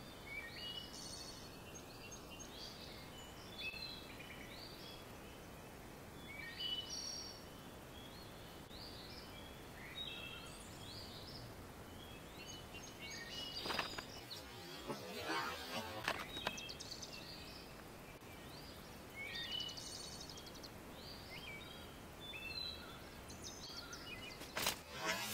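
Outdoor ambience of small birds singing, many short high chirps repeating throughout. About halfway through comes a noisy crackling burst of about two seconds, and another starts just before the end.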